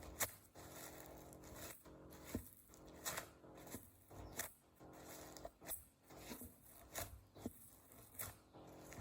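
Paper towels handled close to the microphone: a quiet run of short, irregular crinkles and rasps, about one or two a second, as the paper is scrunched.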